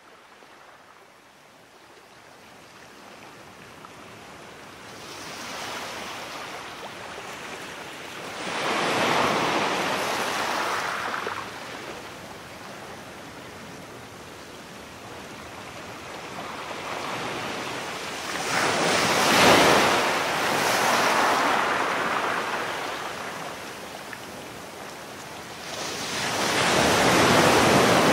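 Ocean surf washing up the beach, swelling and fading in three louder surges, starting from a faint hush.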